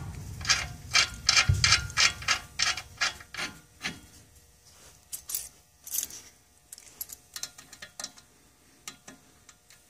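Lug bolts being tightened into a car's front wheel hub through the brake rotor: rapid metallic clicking, about four clicks a second, thinning to scattered clicks after about four seconds.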